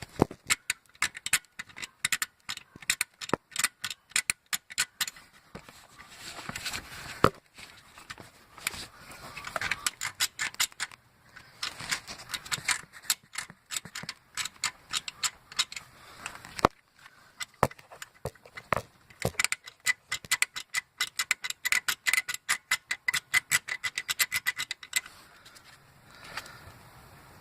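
Loose metal bracket under a '99 Mustang Cobra engine rattling and clicking in repeated bursts with short pauses; the owner found it to be the cause of the engine's tapping and ticking noise. The clicking stops shortly before the end.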